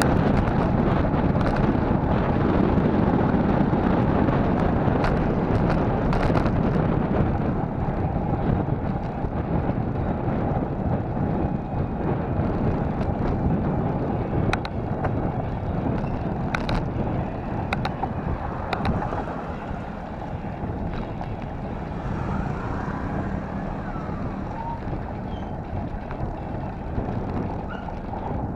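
Wind buffeting the microphone of a camera on a moving bicycle: a steady low rumble, loudest at first and easing off gradually. A few short sharp clicks come around the middle, as the bike rattles along the road.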